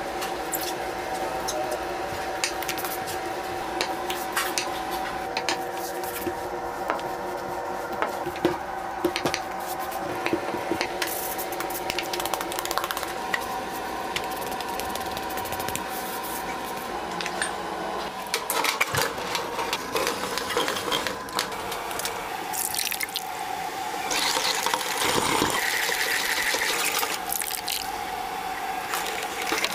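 Kitchen working sounds: a steady machine hum under frequent clicks and knocks of utensils and pans. Near the end come louder, wet sounds of thick tomato sauce being poured from a tin into a metal bowl and stirred.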